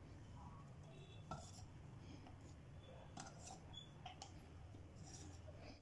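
Near silence: room tone with a low steady hum and a few faint scattered clicks.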